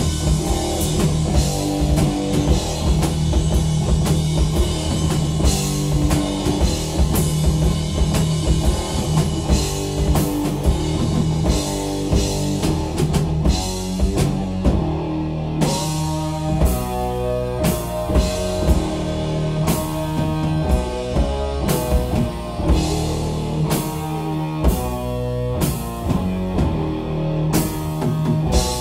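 Heavy metal band playing live: distorted electric guitars, bass and a drum kit, instrumental with no singing. About halfway through the riff changes and the drums hit on a regular, evenly spaced beat.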